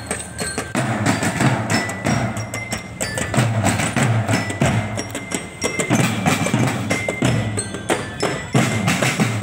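Marching drum band playing while walking: bass drums thumping a steady beat under rapid snare drum strokes, with short high ringing notes over the drumming.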